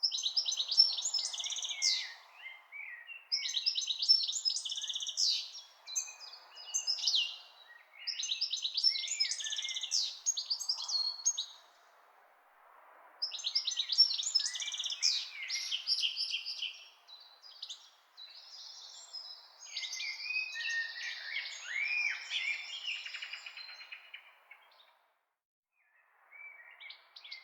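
A songbird singing in a run of rapid, high chirping phrases, each a few seconds long with short pauses between, over a faint steady background noise.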